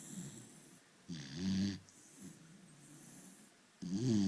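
Beagle snoring in its sleep: two loud snores, one about a second in and another near the end, each a low pitched drone with a breathy hiss over it.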